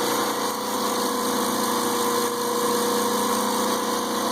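Homemade 2x72 belt grinder running steadily on its 1 horsepower electric motor: a steady whine over an even hiss.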